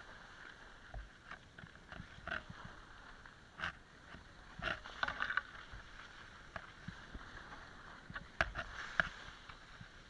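Skis sliding over packed snow: a steady hiss broken by irregular louder scrapes every second or so.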